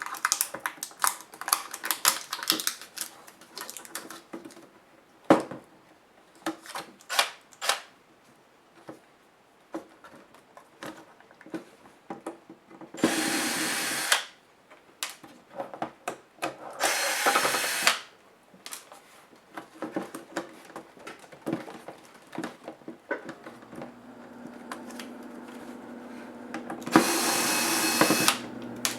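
Clicks, taps and rattles of laptop parts and screws being handled, broken three times by short runs of a small electric screwdriver, each lasting about a second.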